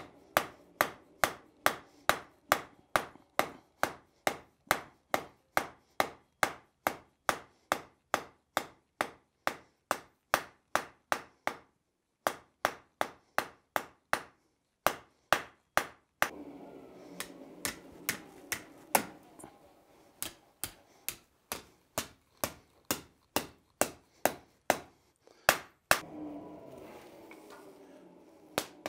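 Blacksmith's hand hammer striking a red-hot steel bar on the anvil: a steady run of sharp, ringing blows, about two or three a second, with a few short breaks, the longest near the end.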